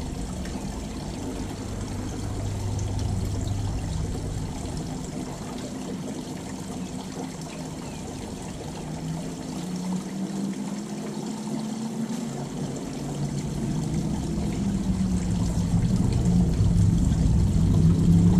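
Water trickling and pouring steadily. In the last few seconds a motor's hum comes in, rising in pitch and growing louder.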